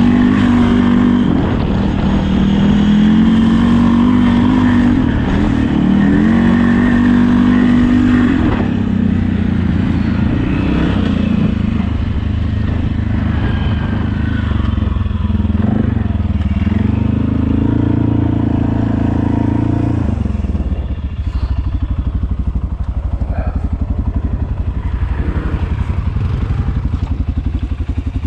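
ATV engine revving up and down under throttle, its pitch rising and falling repeatedly, then settling to a steady idle about twenty seconds in.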